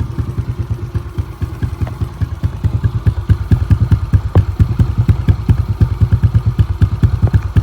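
Yamaha Exciter 135 single-cylinder four-stroke motorcycle engine, rebuilt to a 62 mm bore with an aftermarket exhaust, idling just after starting. Its exhaust note is steady, warm and fast-pulsing, and grows louder a couple of seconds in.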